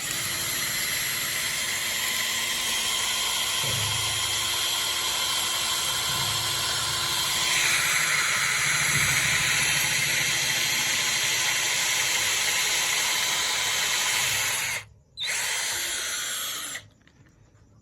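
JPT 12V cordless drill running as it bores a hole into a wall, getting louder about halfway through. It stops briefly near the end, starts again for a moment, then cuts off.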